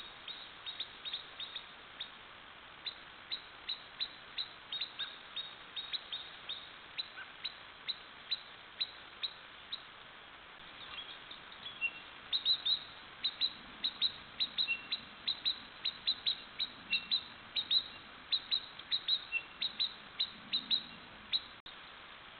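Ground squirrel giving sharp, high alarm chirps over and over, about two a second at first, then faster and louder through the second half, over a faint steady hiss. The sound cuts out abruptly near the end.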